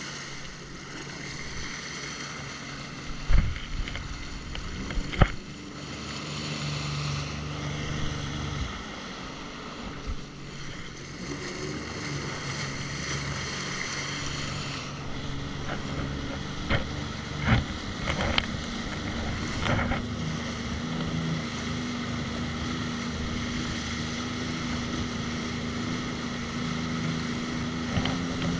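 Jet ski engine running under steady wind noise on the microphone, its note settling higher about twenty seconds in. Several short sharp thumps stand out above it.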